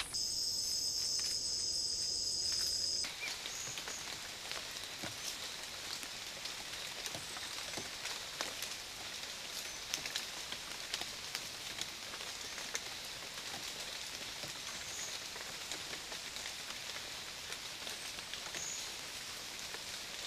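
Forest ambience from a trail camera: a steady high-pitched insect drone for about the first three seconds, cutting off abruptly. After it comes an even high hiss with scattered ticks and a few faint short chirps.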